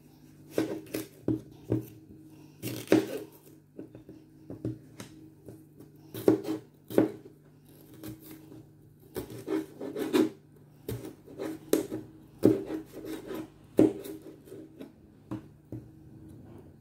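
Large kitchen knife slicing a red bell pepper on a plastic cutting board: a run of uneven knife taps against the board, many of them in quick clusters of a few strokes.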